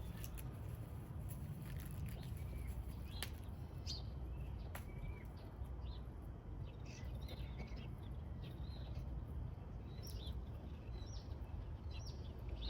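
Small birds chirping on and off over a steady low background hum, with a few sharp clicks in between.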